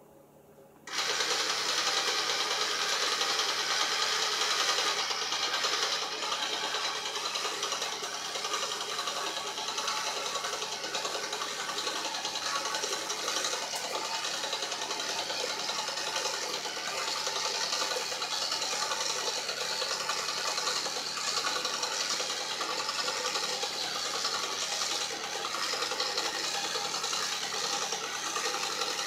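A popsicle-stick Theo Jansen walking machine running: its small 3-volt electric motor drives the legs through a chain of nylon string and beads. It starts suddenly about a second in and runs steadily as the machine walks.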